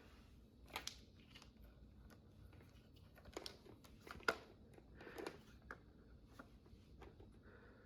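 Faint scattered clicks and light handling noises as a phone and its USB-C charging cable are handled and plugged in. The sharpest click comes about four seconds in.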